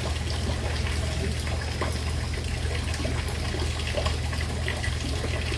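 Steady rush of running water, an even noise with a low rumble underneath and a few faint ticks.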